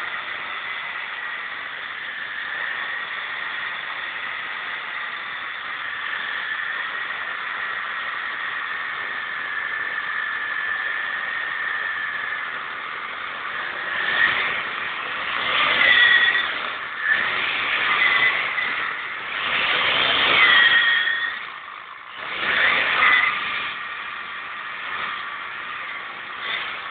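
Motorcycle rear tyre spinning in a burnout: a steady high squeal over the running engine, then, from about halfway through, several loud surges as the engine is revved, the squeal rising and falling with each one.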